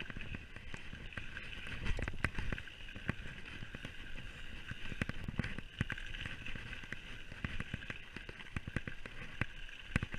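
Mountain bike rolling fast over a rough dirt trail: irregular knocks and clatter from the frame, chain and suspension over bumps, over a steady rushing noise, with a burst of loud knocks near the end.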